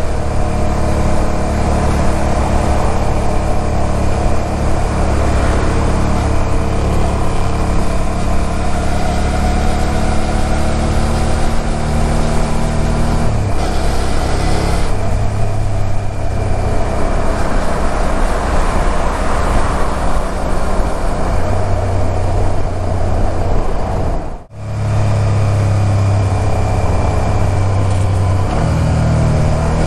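Suzuki SV400S's 90-degree V-twin engine running steadily while riding, with wind and road noise. About 24 seconds in the sound drops out for a moment, then comes back with a stronger low tone.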